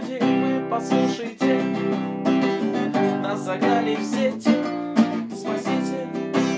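Acoustic guitar strummed in a steady rhythm, chords ringing on from stroke to stroke.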